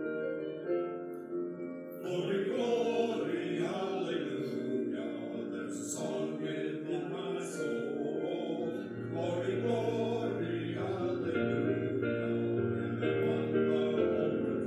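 Sung church music: voices singing over sustained instrumental chords, the singing coming in about two seconds in.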